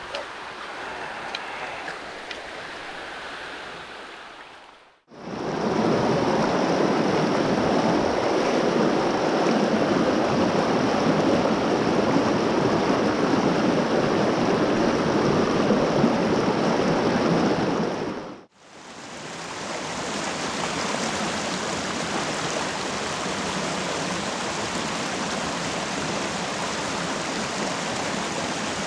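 Rocky mountain creek rushing over stones, heard in three abrupt takes. First comes quieter water splashing around a landing net held in the current, with a few small ticks. About five seconds in it switches to louder, steady cascading rapids, and later it cuts to a softer, even flow.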